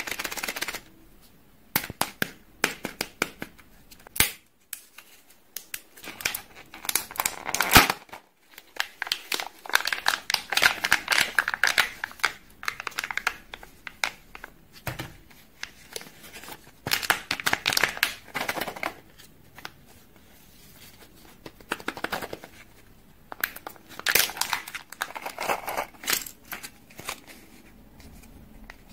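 Kinder Joy egg wrappers and foil seals crinkling and tearing as they are peeled open by hand. The sound comes in irregular bursts with sharp clicks in between.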